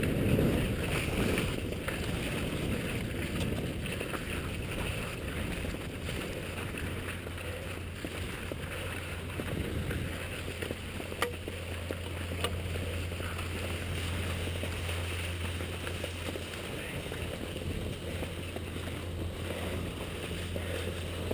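Skis sliding downhill over wet, slushy snow: a steady rushing hiss over a constant low rumble, with a faint click now and then.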